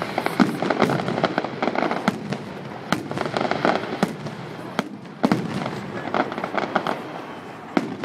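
Fireworks salute going off: dense volleys of bangs and crackling, easing for about a second past the middle before a loud bang starts another volley.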